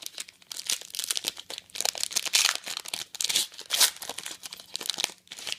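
A foil trading-card pack is torn open by hand. The metallic wrapper crinkles and crackles in a dense run of sharp little crackles, loudest in the middle, then stops just before the end.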